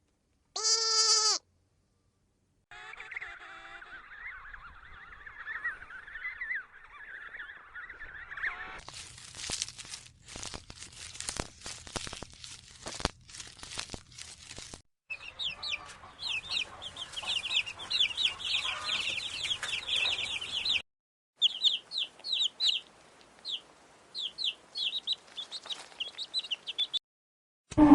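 A run of separate animal-call clips with short silent gaps between them. A brief bleat comes first, then mostly fowl-like clucking and rapid, high, repeated chirps.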